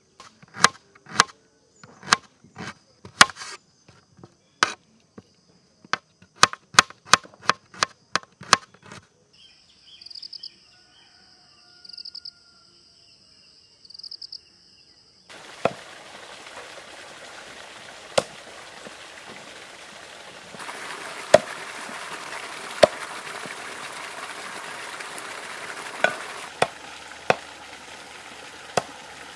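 Knife chopping on a board, a quick irregular run of sharp knocks lasting about nine seconds, with a steady high insect trill behind. After a lull, a steady hiss with scattered sharp pops takes over about fifteen seconds in and grows louder about twenty seconds in.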